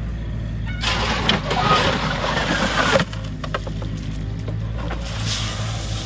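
Excavator engine running steadily while gravel pours and rattles out of its clamshell grab bucket. The pour is loudest for about two seconds near the start, then gives way to a few loose stones clicking as they drop.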